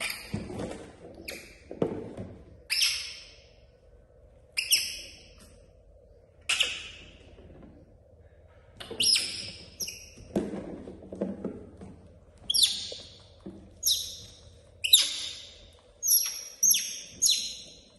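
Young pet monkey giving short, high-pitched chirping squeaks, each sliding down in pitch, about fifteen over the stretch and coming in quick runs near the end. A faint steady hum and a few soft knocks lie underneath.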